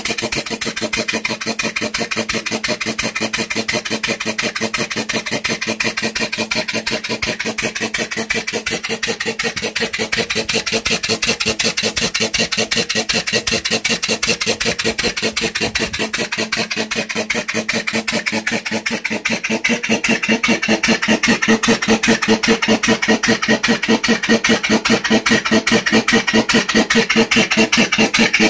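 Briggs & Stratton engine converted to steam, running on compressed air: a rapid, even beat of air exhaust pulses that gets louder about twenty seconds in.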